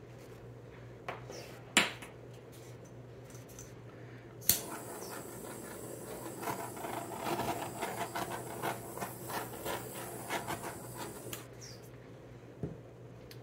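Two sharp clicks, then about seven seconds of irregular rattling and rustling with a faint high whine, over a steady low hum.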